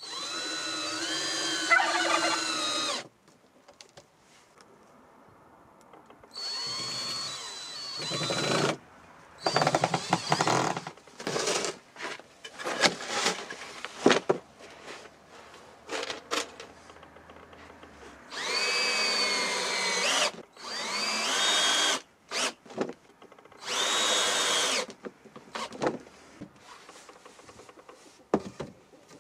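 Cordless drill driving screws into pine boards. It runs in about six bursts of one to three seconds, the motor's whine rising and sagging as the trigger is squeezed and the screw bites. Between the bursts come short knocks and clicks of the boards being handled.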